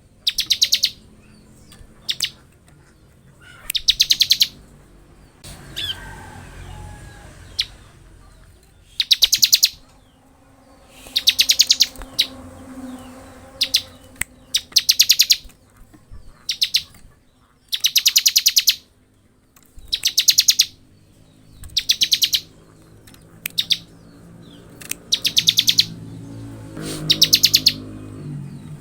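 Bar-winged prinia (ciblek) singing in the 'ngebren' style: short, fast, rattling trills, each under a second long, repeated about every two seconds.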